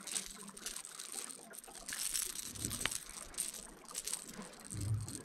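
Quiet water sounds around a fishing boat with scattered small clicks and knocks, one sharp click about three seconds in and a dull thump near the end.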